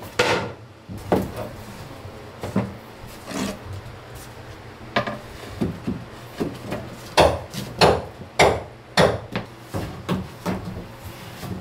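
Plywood floor panels being set down and shifted on wooden floor framing: irregular wooden knocks and clatter, with a run of louder knocks about seven to nine seconds in.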